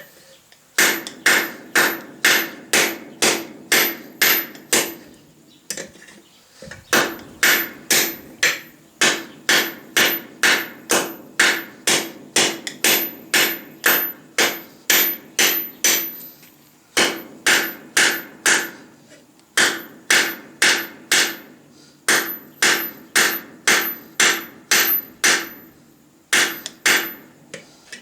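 Hand hammer blows on steel bar over a small stake anvil, about two a second in runs with brief pauses, each blow ringing.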